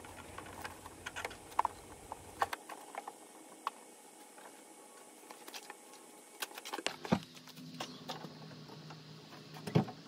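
Faint, scattered clicks and taps of engine-bay parts being handled and set back in place by hand, with a louder knock near the end; the engine is not running.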